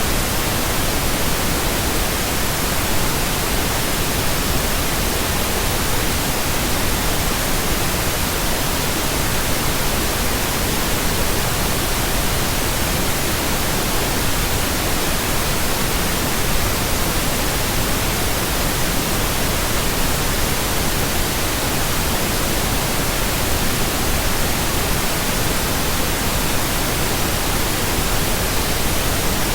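Steady pink noise: an even, unbroken hiss spread across the whole range from deep to high, with no tones or changes.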